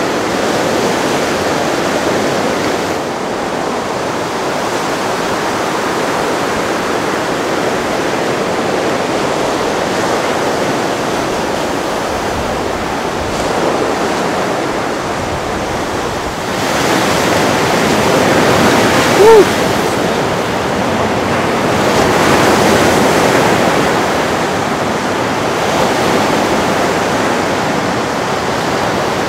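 Ocean surf breaking on a reef, a steady rush of white water that swells louder about halfway through. A single short, high chirp cuts through a little later.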